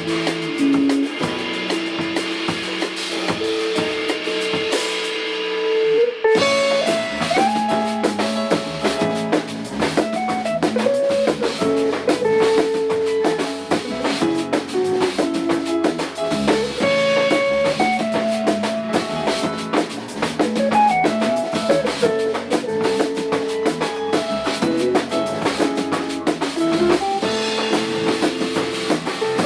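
Instrumental rock band music with guitar, keyboard, bass and drum kit. It opens with held guitar and keyboard notes and no drums, then the full band with drums comes in about six seconds in and plays on at a steady beat.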